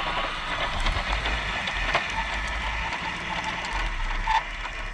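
Radio-controlled scale model tractor and trailer driving past: a steady mechanical whirr with scattered clicks and rattles as the wheels roll over a gritty concrete track.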